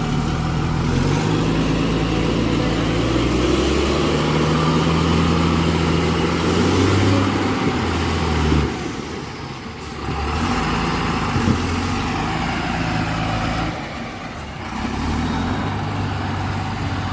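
Heavy diesel engines working hard during a vehicle recovery. The engine note eases off briefly twice, about halfway through and again later, then picks up again.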